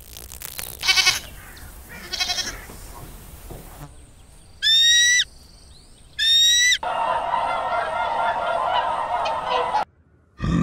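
Goats bleating: two quavering bleats about one and two seconds in, then two louder, higher-pitched calls around five and six seconds, followed by a few seconds of noisy herd sound that cuts off suddenly near the end.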